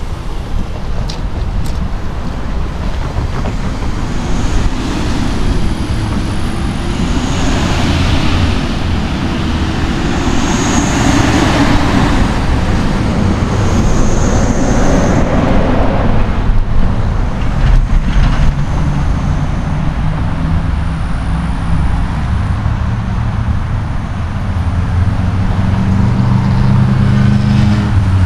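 Road traffic on a street, cars and a tractor-trailer going by. The traffic noise swells loudest about halfway through as a vehicle passes close.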